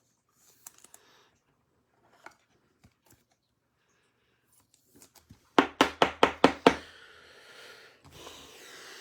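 Trading cards handled on a tabletop: a few light clicks, then about halfway through a quick run of about seven sharp knocks, followed by a couple of seconds of rustling as the cards are moved and slid.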